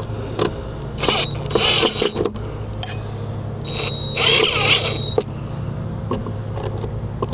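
Drill with a 10 mm socket driving large screws into the wall to fasten a mounting bracket, in two short whining bursts about a second in and about four seconds in, with scattered clicks from the socket skipping on the screw head. A steady low hum runs underneath.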